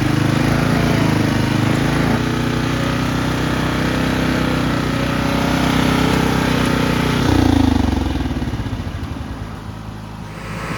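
Riding lawnmower's small engine running steadily, then about seven seconds in it surges briefly and its pitch and level fall away as it slows down, picking up again near the end.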